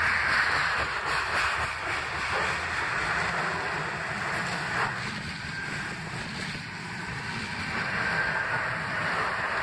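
Freight train of covered hopper wagons passing close by: a steady rush and rumble of wagon wheels on the rails, with a single sharp knock about five seconds in.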